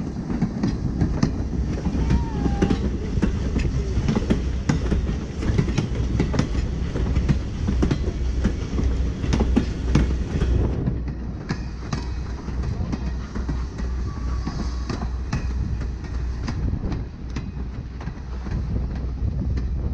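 Passenger coaches rolling past, their wheels clicking irregularly over the rail joints over a steady low rumble.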